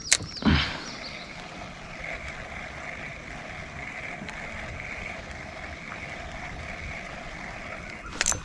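Quiet ambience of calm river water around a drifting kayak: a soft, even hiss with a faint, steady two-tone hum behind it. A few sharp clicks come in the first half-second and again just before the end.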